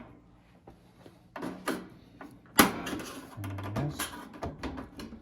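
Plastic front panel of a nugget ice maker being pried loose: scattered clicks and scraping, with one sharp snap about two and a half seconds in as a retaining clip pops free.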